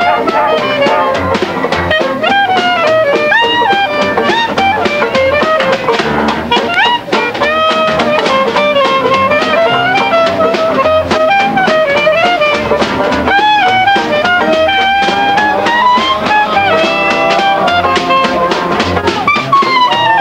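Background music: a jazz tune led by brass, with a trumpet-like melody over drums and a steady beat.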